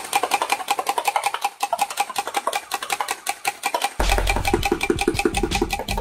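Battery-powered toy M416 gel blaster firing on full auto, a rapid, even mechanical rattle of shots. About four seconds in, music with a low bass comes in under the firing.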